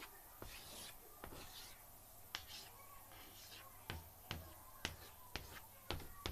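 A series of sharp, irregular clicks and taps, about eight or nine of them, several close together in the second half.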